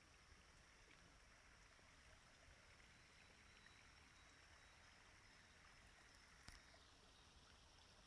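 Near silence: faint forest ambience, a soft even hiss with a faint thin high tone, and one faint click about six and a half seconds in.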